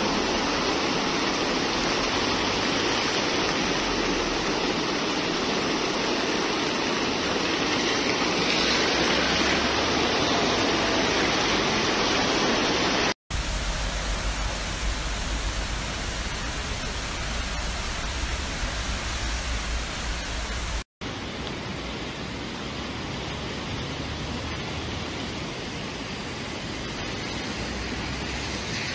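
Fast-flowing floodwater rushing steadily, heard in three cut-together clips with two brief silent breaks. The middle clip carries a heavy low rumble under the water noise.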